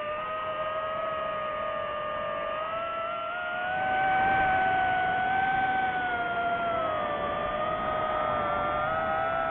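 DJI FPV drone's motors and propellers whining, the pitch and loudness rising about four seconds in and easing back down near seven seconds as the throttle changes.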